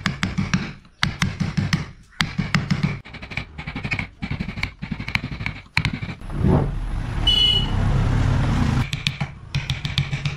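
Wooden mallet striking a steel carving chisel into a block of wood: a rapid series of sharp knocks, several a second, with brief pauses. About six seconds in, the knocks give way to about three seconds of steady rumbling noise with a short high tone in it, and the tapping resumes near the end.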